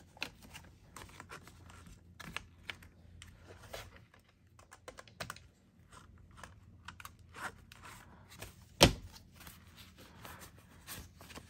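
US paper banknotes being counted by hand: bills flicking and rustling against each other, with light scattered taps and clicks. One sharper knock about nine seconds in.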